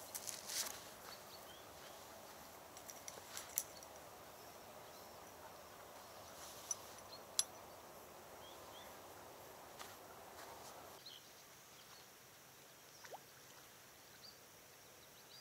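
Quiet riverbank ambience: a faint even hiss that drops away about eleven seconds in, with a few faint sharp clicks and short high chirps.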